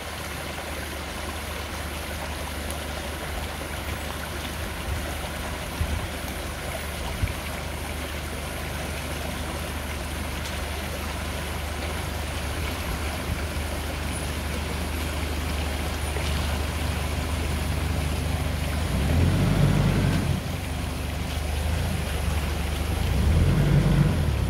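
Mitsubishi Pajero Full 4x4 driving slowly with its engine running, a steady low rumble that grows louder and swells twice near the end.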